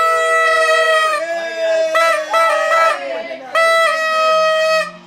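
Several party horns blown at once: one held blast for about a second, then a run of shorter overlapping toots, some sliding in pitch, and a last held blast that stops just before the end.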